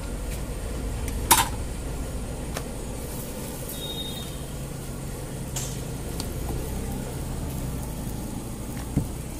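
Cooking-stall background: a steady low rumble, with a sharp ringing clink a little over a second in, a lighter click about halfway through and a dull knock near the end.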